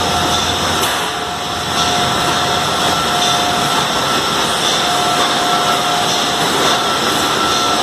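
Steady, loud mechanical noise of a running lollipop production line: its electric motors, pumps and stirred cooking tanks, with a high whine that drops out and comes back.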